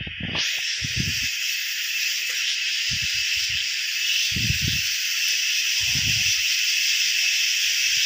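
Evening insect chorus: a loud, steady, high-pitched shrill hiss with no pause, and a few low muffled thumps underneath.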